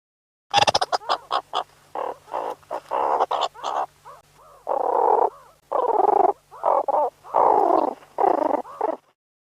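Meerkats calling: a rapid series of short, harsh calls, starting about half a second in and stopping shortly before the end, over a faint low hum.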